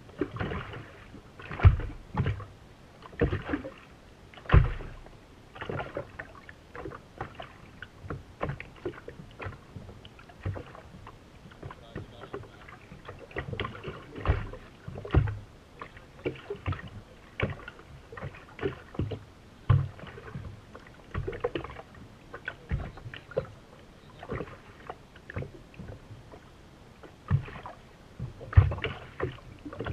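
Choppy water slapping against the hull of a race boat that is sitting nearly still: irregular knocks and thumps at uneven spacing, heard through a camera mounted on the deck.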